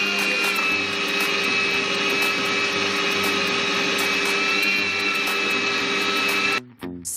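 Tenfly electric meat grinder's motor running with a steady high whine, switched off and cutting out suddenly about six and a half seconds in.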